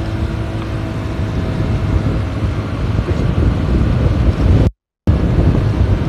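Wind buffeting the microphone on a moving Yamaha VOX scooter, a steady low rumble with road and engine noise underneath; the engine itself barely comes through. The audio cuts out completely for a split second near the end.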